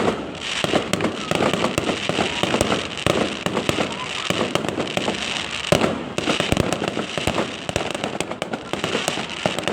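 Fireworks display: a dense, continuous run of bangs and crackles, many reports a second, with one louder bang a little past halfway.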